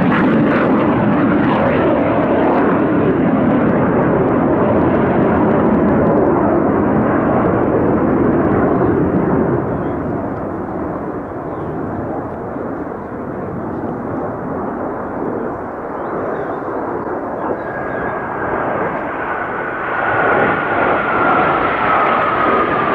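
A formation of four KAI T-50B Golden Eagle jets flying past with a steady jet roar. The roar eases about ten seconds in and swells again near the end, and over the last few seconds a high engine whine falls in pitch as the jets pass.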